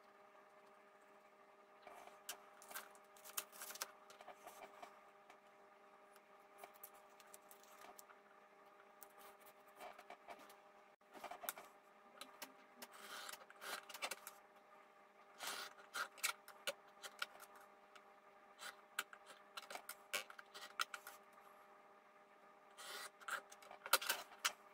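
Faint scattered scrapes, taps and scratching of hand tools working leather on a plastic cutting board: a pen marking the leather, a steel ruler laid down and a blade cutting along it. A faint steady hum lies beneath.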